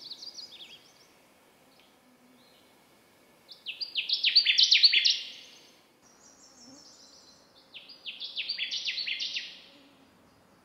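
Male Connecticut warbler singing on territory: two loud songs about four seconds apart, each a rapid chant of repeated, down-slurred notes that swells in loudness, with the end of an earlier song at the start.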